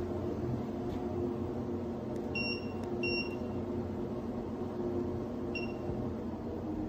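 Goplus 2-in-1 folding electric treadmill running with a steady motor and belt hum. Three short electronic beeps sound over it, two close together about two and a half seconds in and one more near the end.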